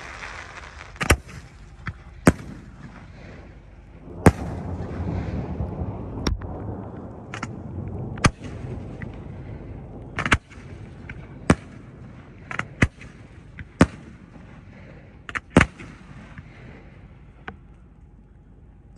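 Aerial fireworks shooting off one after another, with about a dozen sharp bangs at uneven gaps of a second or two. A low rumble follows the bang about four seconds in.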